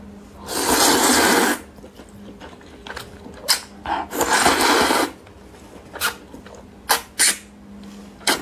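Noodles being slurped from a bowl of broth: two long, loud slurps, about half a second and four seconds in, with short sharp mouth clicks between them.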